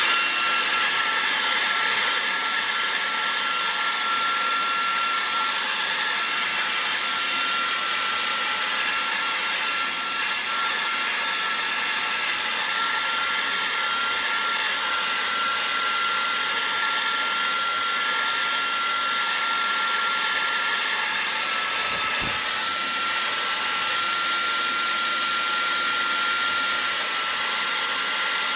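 Electric hot-air blower running steadily, a constant fan whine over rushing air. It is heating the phone's back panel to soften the adhesive. The pitch dips briefly about three-quarters of the way through and then recovers.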